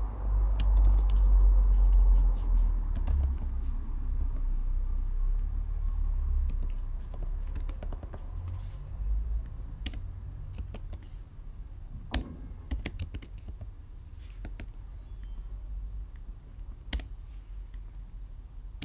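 Typing on a computer keyboard: irregular, scattered keystroke clicks. Underneath is a low rumble that is strongest in the first few seconds.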